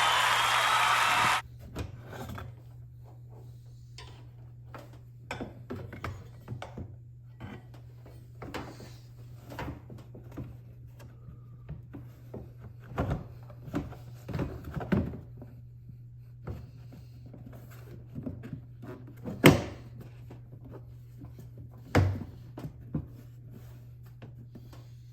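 Scattered clicks and knocks of a car's battery cover and cowl panel being fitted back into place, with a sharp knock about two-thirds of the way through and another a couple of seconds later, over a steady low hum. Background music plays at the start and cuts off about a second and a half in.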